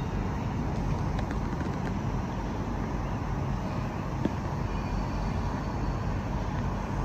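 Steady hum of distant city traffic, an even rumble with no single vehicle standing out, and a faint tick about four seconds in.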